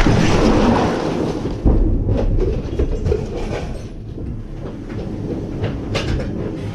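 Igla shoulder-fired missile launch: the firing blast echoing in a small room at the very start, then the rocket's rush fading over about a second and a half. A sudden low thump follows about two seconds in, then scattered knocks and clatter.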